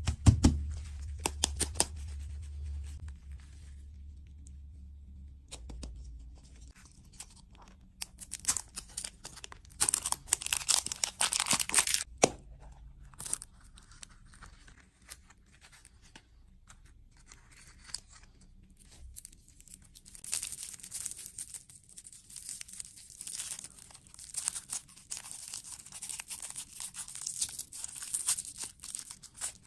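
Food wrappers being torn open and crinkled, in irregular bursts of crackling.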